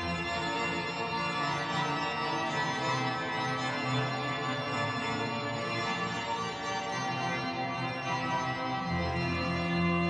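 Organ music in long sustained chords; a deeper chord comes in about nine seconds in.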